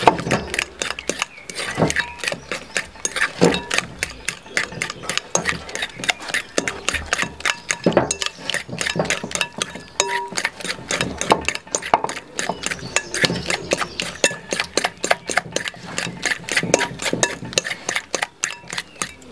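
Metal utensil mashing ripe banana and brown sugar in a glass mixing bowl: quick, even clicking and scraping against the glass, about five strokes a second.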